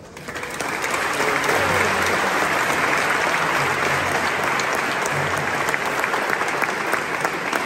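A crowd applauding, starting suddenly and keeping up a steady clapping throughout.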